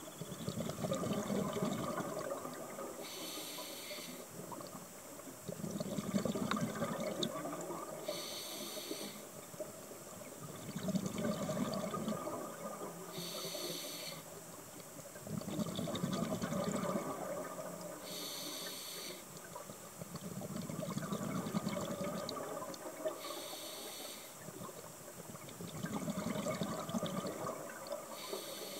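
Scuba diver breathing through a regulator underwater, about six breaths: each a short hiss of inhaled air followed by a longer burble of exhaled bubbles, repeating about every five seconds.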